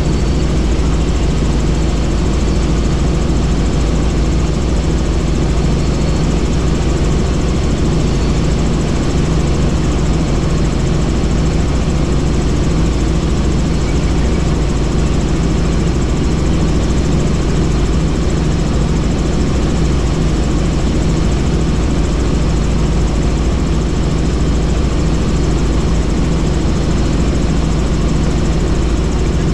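Helicopter in flight: a steady, loud drone of engine and rotor that holds unchanged throughout.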